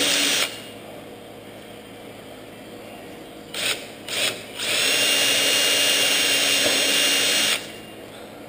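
Cordless drill boring pilot holes through a wooden firewall: a steady whine that stops shortly after the start, two short blips of the trigger a few seconds in, then another steady run of about three seconds that stops near the end.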